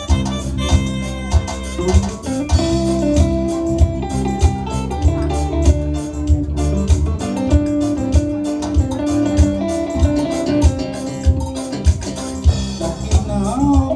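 Live band playing an instrumental passage: electric guitar and keyboards over bass and a steady drum beat, with no singing.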